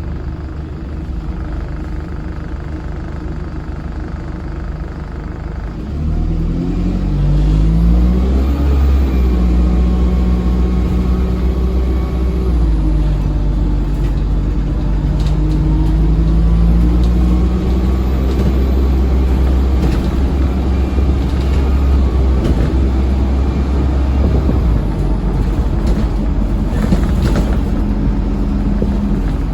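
Dennis Dart SLF bus heard on board, its engine running fairly steadily at first. About six seconds in it gets louder as the bus pulls away with the loud 'hoover' whine. The engine note rises, drops back and rises again as the Allison 2100 four-speed automatic works up through the gears.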